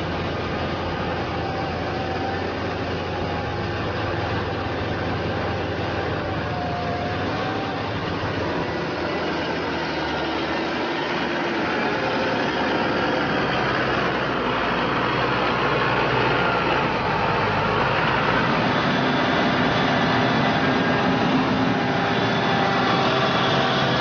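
Heavy farm machinery engine running steadily, getting somewhat louder about halfway through.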